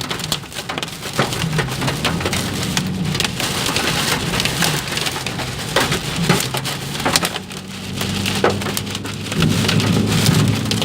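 Hailstones and rain pelting a car's body and windscreen during a tornado's storm, heard from inside the car: a dense patter of sharp knocks over a steady hiss. A low steady hum joins near the end.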